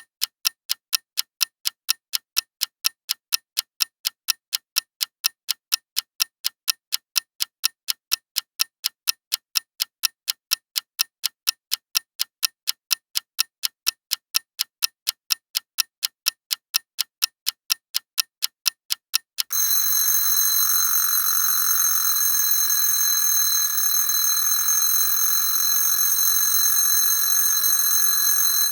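A clock ticking steadily in an even rhythm. About two-thirds of the way through, the ticking gives way to an old-fashioned bell alarm clock ringing continuously, which cuts off suddenly.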